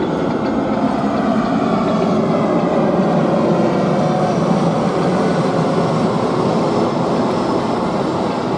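Jet engines of an Airbus A320 airliner passing low overhead on approach with its landing gear down, a steady roar that swells to its loudest about three to four seconds in and then eases slightly.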